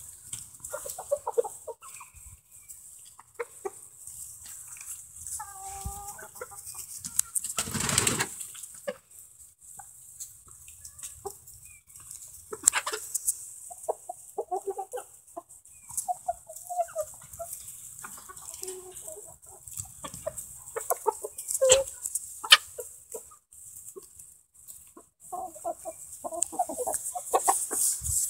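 A flock of hens and young roosters clucking in short, scattered calls as they mill about after being let out of their pen, with a brief rushing noise about eight seconds in.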